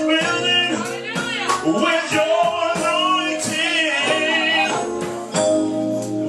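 Live worship music: a singer's voice gliding through long held notes over a band's steady chords.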